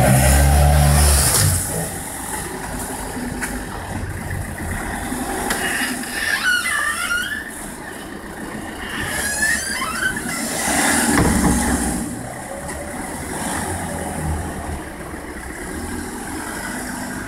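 City street traffic: car engines running and vehicles passing as a Citroën minivan pulls out of a parking space and drives off. A heavy engine rumble fills the first second or so and comes back about eleven seconds in. High, wavering squeals sound about six and nine seconds in.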